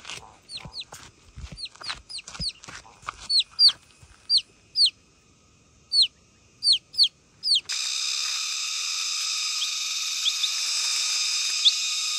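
A chicken chick peeping loudly and insistently: short, high, falling peeps a few times a second, with gravel crunching underfoot in the first seconds. About eight seconds in the peeping stops and a steady high buzzing drone takes over, with a few faint chirps.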